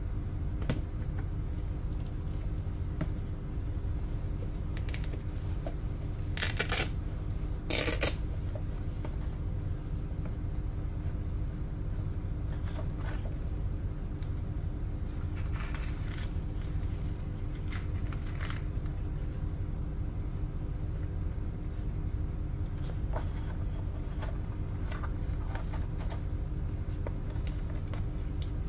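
A zippered hard-shell EVA carrying case being opened and handled: two short, loud zip rasps about seven and eight seconds in, then faint rustles and taps of a paper insert, a small packet and the fabric divider, over a steady low hum.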